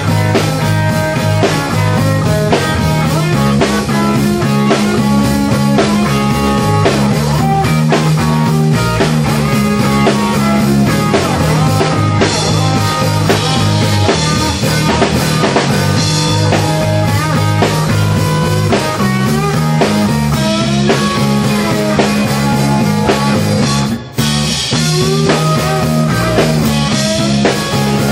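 Live rock band playing an instrumental passage: distorted electric guitars over a steady low line and a drum kit, with a split-second break about three quarters of the way through.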